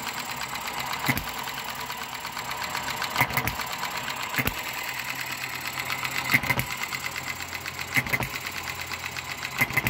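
Eachine ET1 model hit-and-miss engine running, freshly rebuilt: rapid light clatter from the valve gear and coasting flywheels, with a louder firing stroke every second or two as the governor lets it fire and then miss.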